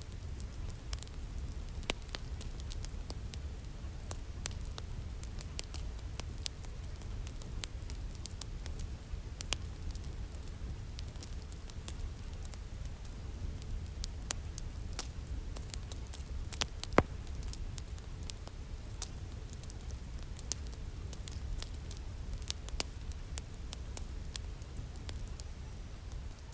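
Steady pink noise, heaviest in the low end, with scattered sharp crackling clicks throughout and one louder pop about 17 seconds in.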